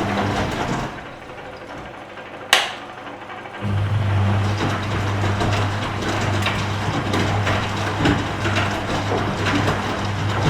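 Washing machine in its wash cycle: a steady motor hum under the swish and patter of the tumbling load. About a second in the motor stops, a single sharp click comes about two and a half seconds in, and the motor starts again about a second later and runs steadily on, the pause typical of the drum changing direction during washing.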